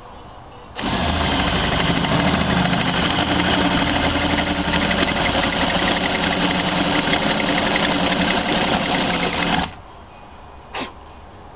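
Cordless drill turning a ground-down step drill bit, cutting an O-ring counterbore into a head-stud bolt hole in a cast-iron diesel cylinder head. It starts about a second in, runs steadily at one speed for about nine seconds, and stops suddenly.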